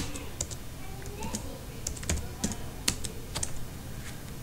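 Typing on a computer keyboard: about ten separate keystrokes at an irregular pace, as a command is entered.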